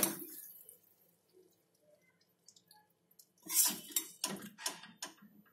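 A metal spatula scrapes cooked greens in a steel kadai, fading out within the first second. After a quiet pause, a burst of short scrapes and clinks comes about three and a half seconds in as the food is served into a glass bowl.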